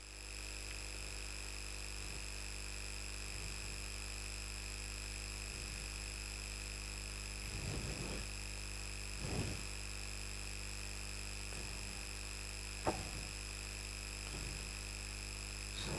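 Steady electrical hum with a faint high-pitched whine, the recording's background noise. A few faint strokes of a marker drawing lines on a whiteboard come around the middle, with a single click near the end.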